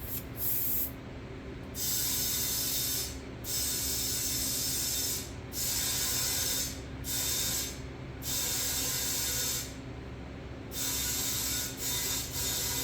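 Compressed air hissing from an air hose chuck into an ATV tire in repeated one- to two-second bursts with short pauses, as the tire is filled toward its target pressure, over a steady low hum.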